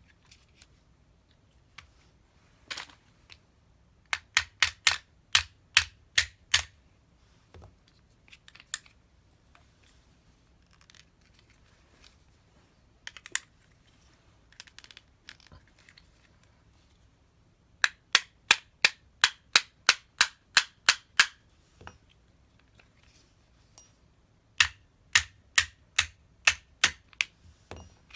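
Runs of sharp mechanical clicks, about three to four a second: one run of eight about four seconds in, a longer run of about ten near the middle, and another of about eight near the end. A few single clicks fall between the runs.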